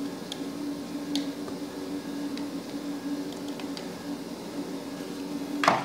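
A steady low hum, with a few faint clicks as a plastic model fuselage and a glue bottle are handled during gluing. A brief vocal sound comes near the end.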